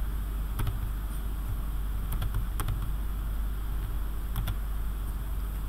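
Computer mouse clicking a few scattered single times over a steady low hum.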